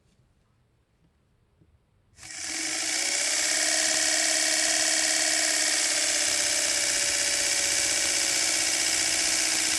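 Spinning cardboard disc with a paper strip flicking against four pieces of masking tape, making a steady, buzzing, engine-like sound like a four-cylinder engine heard in the engine bay. It starts suddenly about two seconds in, comes up to full speed within a second, and holds a steady pitch.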